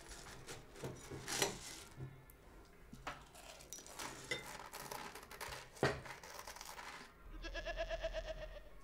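A scattering of light clicks and knocks, then a wavering, bleating call lasting about a second and a half near the end.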